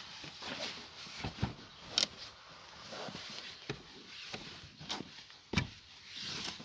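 Scattered sharp knocks and clicks, about six of them, over a faint background hiss.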